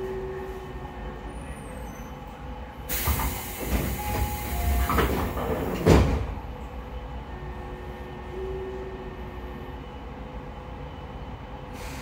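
Interior of a standing Tobu 9000-series electric commuter car, a steady low hum with faint steady tones. About three seconds in, a loud rushing hiss rises and runs for roughly three seconds, ending in a sharp thump. Then the hum continues alone.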